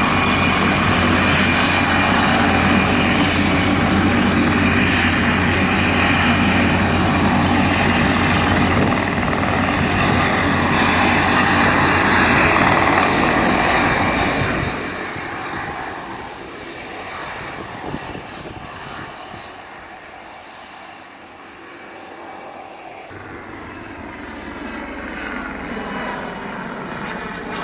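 Mosquito XET single-seat turbine helicopter in flight: the turbine whine and rotor noise run loud and steady, then drop away to a quieter whine about halfway through.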